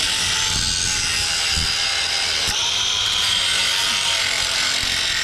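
Angle grinder running steadily against steel, grinding off the welds of an emblem on an excavator thumb: a constant high whine over the rasp of the disc on the metal.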